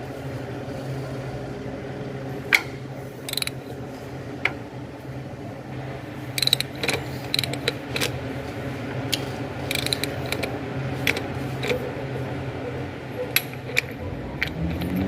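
Ratchet wrench clicking in uneven strokes as it turns the crankshaft of a Mitsubishi L200 Triton 3.2 diesel clockwise by hand, bringing the pulley to its zero timing mark. A steady low hum runs underneath.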